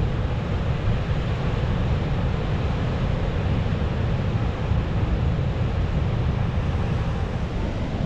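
Storm surf on the Black Sea breaking along a sandy beach: a steady, unbroken rush of waves, with wind buffeting the microphone.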